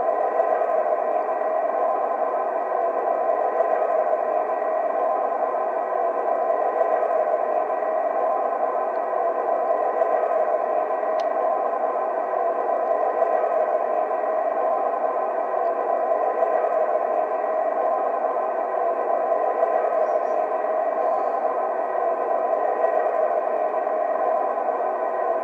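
Jet engines of a Lufthansa Airbus A380, Rolls-Royce Trent 900 turbofans, running at a steady low power. They make an unchanging whine of several held tones, with little deep rumble.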